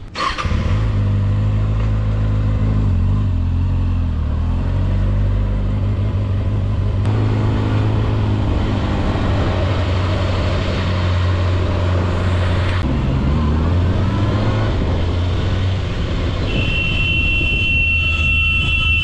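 Kawasaki ZX-6R's inline-four engine running at low road speed in traffic, a steady low engine note with road noise. Near the end a vehicle horn sounds for about two and a half seconds.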